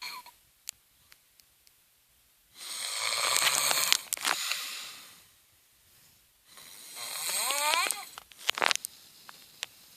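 A woman snoring in her sleep: two long snores a few seconds apart, the second with a rising whistling tone, then a few short clicks near the end.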